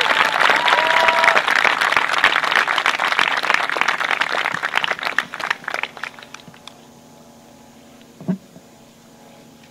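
A crowd of people clapping and cheering, with a whoop about a second in. The applause thins out and stops about six seconds in, leaving a faint steady hum.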